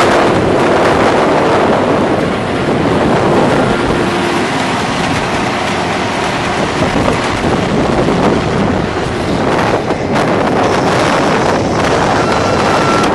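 Tractor-drawn potato harvester running at work close by, a loud steady machinery din with wind buffeting the microphone. A steady beeping starts near the end.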